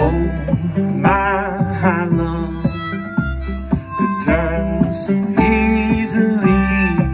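Live acoustic band music: a harmonica plays warbling, bending notes over strummed acoustic guitar, electric bass and congas.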